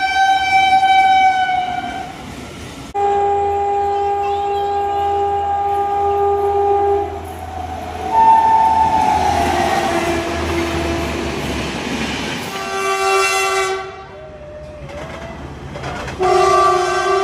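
Indian Railways locomotive horns sounding a series of long blasts, several of them two-toned, with abrupt changes from one blast to the next. Under the middle blasts is the rumble and rushing noise of a train passing. One blast about eight seconds in drops slightly in pitch.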